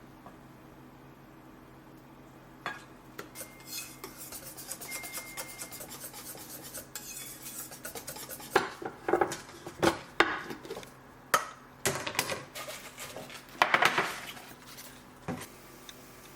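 Kitchen clatter: utensils clinking and scraping against bowls and dishes, with a busy run of sharp knocks in the second half.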